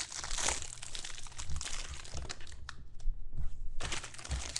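Clear cellophane wrapper on a pack of football trading cards crinkling and crackling as it is torn and pulled off. The crackle breaks off for under a second about three seconds in, then resumes.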